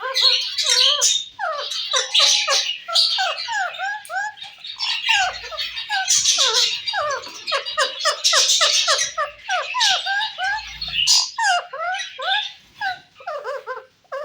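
Pet myna chattering: a rapid, unbroken run of squawks and whistled notes that bend up and down in pitch.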